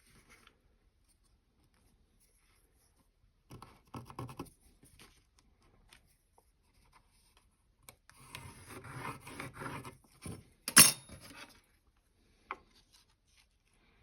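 Marking tools scratching and rubbing on a wooden workpiece while an angle is transferred onto it. The scratching comes in two short spells, the second longer, with a sharp click near the end of it and a smaller click about a second and a half later.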